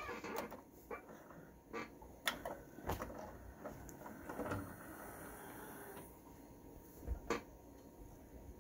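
Sony CDP-CA70ES five-disc CD changer's tray and carousel mechanism working: a faint motor whir with a string of mechanical clicks and clunks as the drawer opens.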